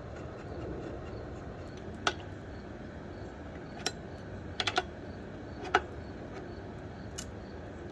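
Sharp metal clicks and clinks of a wrench working the 17 mm lock nut back onto a motorcycle's chain adjuster. About seven irregular clicks, with a quick run of three in the middle, over faint steady background noise.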